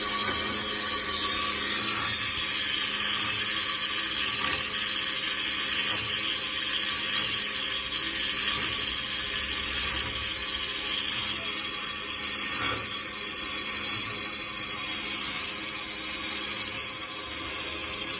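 Cutting machine running steadily: a continuous high hiss over a low, even hum, with a few faint knocks.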